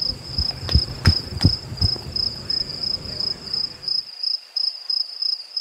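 Crickets chirping in a steady run of high pulses. For the first two seconds, quick evenly spaced thuds of running footsteps go along with them.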